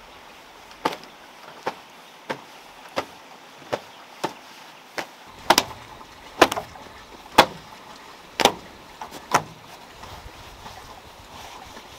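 A cloth rag slapped and flicked against bare wooden deck boards and railing to dust them: a run of about a dozen sharp slaps, roughly one every second or less, loudest in the middle and stopping near the end.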